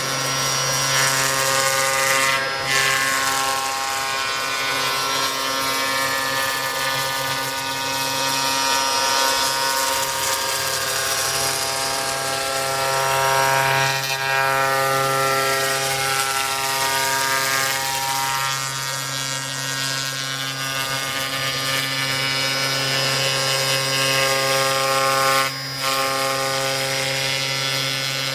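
CNC router running as it engraves foam: a steady machine whine made of several tones, some shifting in pitch now and then as the machine moves, with two brief dips, one a couple of seconds in and one near the end.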